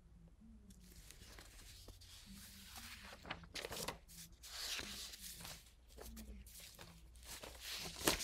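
Loose sheets of paper rustling and crinkling in irregular bursts as they are shuffled and lifted, loudest near the end.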